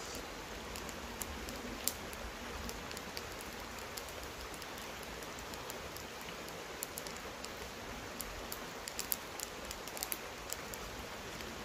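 Steady hiss of water outdoors, sprinkled with many scattered light ticks and clicks.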